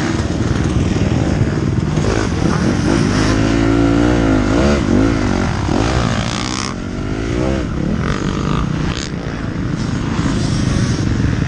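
Motocross bike engine heard from the rider's helmet, its pitch climbing and dropping again and again as the throttle is worked through the corners, over a steady rush of wind noise.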